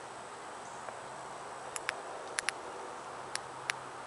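Quiet outdoor ambience: a steady hiss with a faint low hum, and a few short, sharp high-pitched clicks, mostly in quick pairs, starting about two seconds in.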